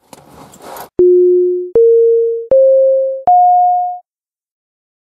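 A short electronic end jingle: four pure, beep-like tones, each struck and fading over about three-quarters of a second, stepping up in pitch one after another. It comes just after a brief rustling noise.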